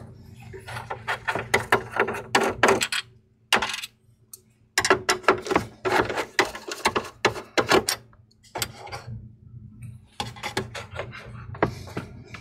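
Clusters of small, quick metallic clicks and rattles from a screwdriver and fingers handling the steel back chassis of an all-in-one PC, with a brief silent break about four seconds in.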